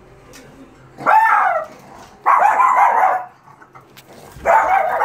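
Shih Tzu barking and yelping excitedly at the front door in three loud bouts, reacting to its owner arriving home.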